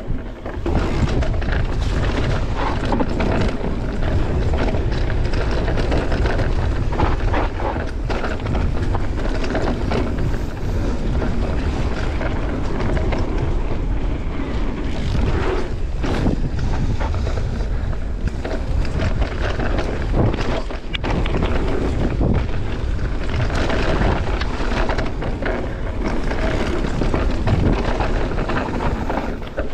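Mountain bike riding a rough trail: a steady rumble of wind buffeting the microphone, with many short knocks and rattles from the tyres and bike over the ground.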